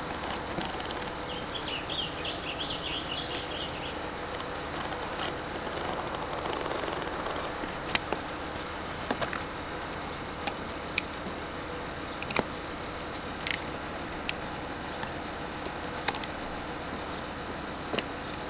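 Utility knife with a fresh blade slicing through an above-ground pool's vinyl liner wall, a faint cutting sound over steady background noise, with about seven sharp clicks in the second half.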